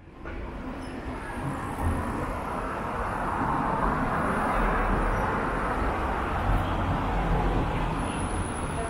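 Busy city street traffic: a steady wash of road noise from passing cars and scooters. It fades in at the start and swells in the middle as vehicles pass close.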